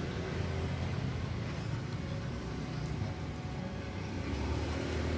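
Steady low engine rumble of motor-vehicle traffic.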